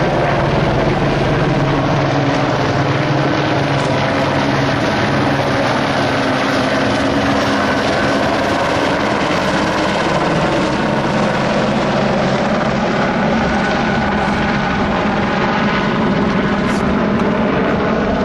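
A loud, steady mechanical drone that holds without a break, with the character of an engine or rotor.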